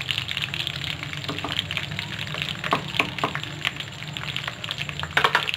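Minced-mutton kababs shallow-frying in hot ghee: steady sizzling and crackling of the bubbling fat, with a few louder pops and clicks around the middle and a cluster near the end.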